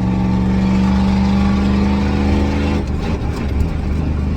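Ford 6.9 IDI diesel V8 running steadily on the throttle; about three seconds in its note breaks up and stumbles for about a second before evening out again. This is the bucking off throttle that is typical of a stuck injection-pump metering rod.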